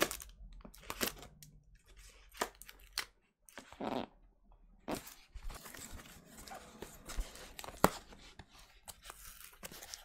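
Packing tape on a cardboard record mailer being cut and torn open: irregular scraping, tearing and crinkling, with scattered sharp clicks and a louder scrape about four seconds in.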